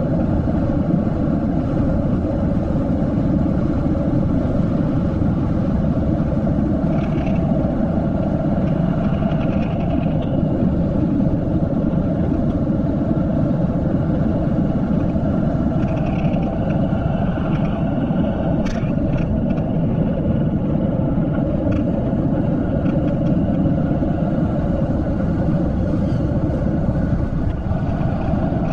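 Steady wind rush buffeting the camera microphone, with tyre noise from a Giant Rincon mountain bike descending at about 40 km/h. A few sharp clicks about two-thirds of the way through.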